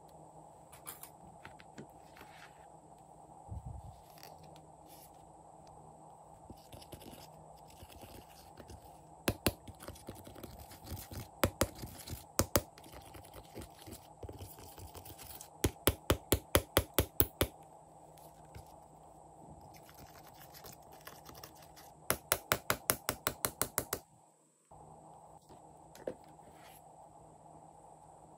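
Small metal tool scraping pressed eyeshadow out of a plastic palette's pans, heard as several runs of rapid sharp clicks, about five a second, over a faint steady hum.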